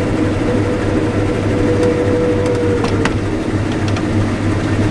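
Combine harvester running, heard from inside the cab: a steady machine drone with a whine that fades out about three seconds in.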